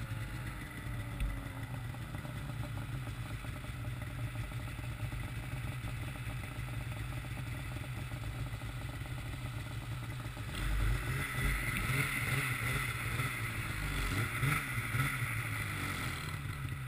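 Polaris snowmobile engine running at low speed, a steady low hum, growing louder and hissier about ten seconds in.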